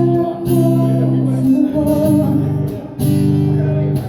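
Acoustic guitar strummed, held chords changing about once a second.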